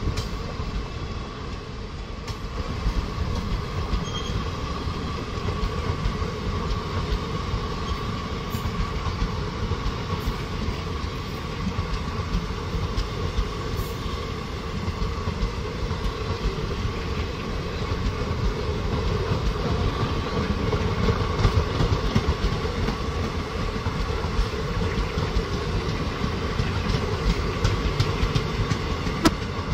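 Passenger coaches of an Indian Railways express train rolling steadily past, wheels running on the rails with scattered sharp clacks.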